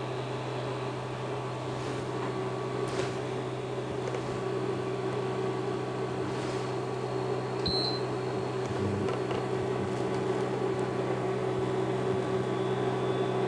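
Steady electric hum with a faint whir from a portable hob heating an empty pan. A short high beep sounds once, about eight seconds in.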